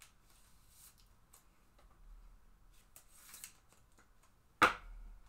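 Soft rustling as a trading card is slid into a clear magnetic one-touch holder, then one sharp click near the end as the magnetic case snaps shut.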